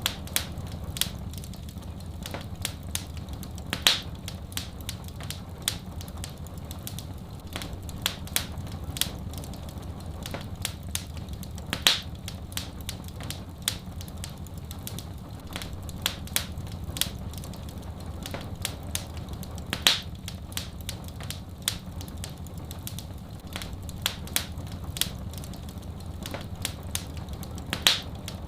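Wood fire in a fireplace crackling, with many small irregular snaps and a louder pop about every eight seconds over a steady low rumble.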